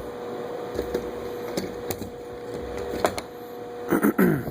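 Plastic fuel pump assembly being lowered into the fuel tank opening, with scattered light clicks and knocks. A louder cluster of knocks and a short falling squeak comes about four seconds in.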